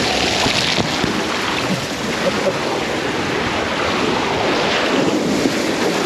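Water rushing and sloshing close around the microphone, a steady loud wash with small crackles, as the camera rides down a pool water slide with the rider.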